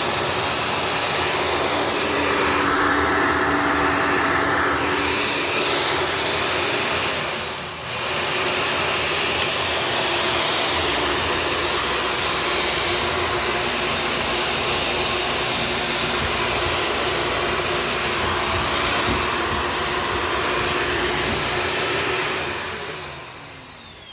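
Corded Shark Stratos vacuum cleaner running steadily with a loud motor whine. About eight seconds in the motor pitch sags briefly and recovers, and near the end the motor is switched off and spins down with a falling whine.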